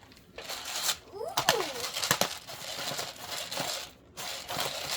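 Hand pepper mill grinding fresh peppercorns: a dense, crackling rasp, with a brief pause about four seconds in.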